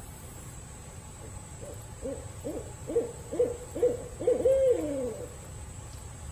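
Barred owl hooting: a run of short, rhythmic hoots starting about a second and a half in, ending near five seconds with a longer hoot that drops in pitch.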